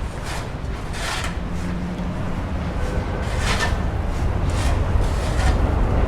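Low rumble of an approaching train, growing steadily louder, with a few short hissing swishes over it.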